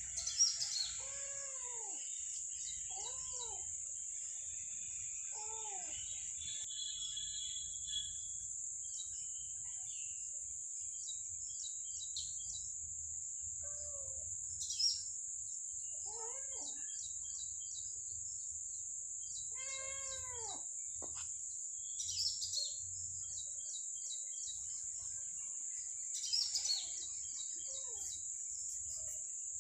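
Steady high-pitched insect drone, like crickets, with bird chirps and a few short rising-and-falling calls scattered through it.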